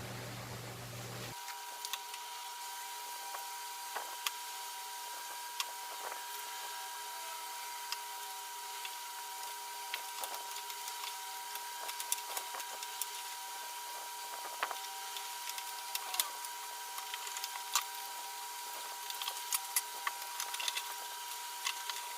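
Scattered small clicks and taps from handling parts and wiring while a new refrigerator temperature sensor (defrost thermostat) is fitted, over a steady faint high whine. The clicks come closer together near the end.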